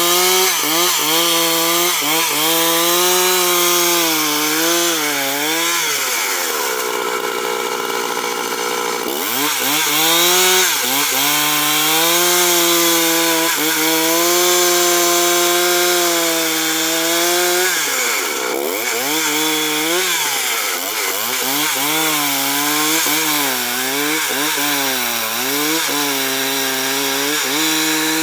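Stihl two-stroke chainsaw running at high revs while cutting wood into planks. Its pitch dips and recovers over and over as the bar loads up in the cut. It drops low for a few seconds about a quarter of the way in, then revs back up.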